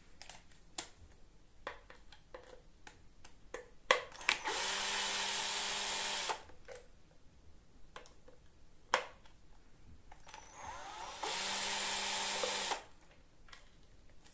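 Cordless drill-driver backing out the two screws that hold a dishwasher circulation pump's housing together. It makes two steady whining runs of about a second and a half each: one about five seconds in, the other near the end, which spins up more gradually. Scattered clicks and knocks of the plastic pump being handled fall between them.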